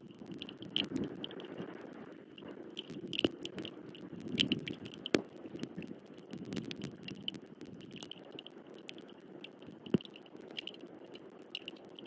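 Raindrops tapping and dripping on the outdoor nest camera, sharp irregular ticks over a low rumbling rustle that swells and fades. A thin band of short high chirps repeats throughout.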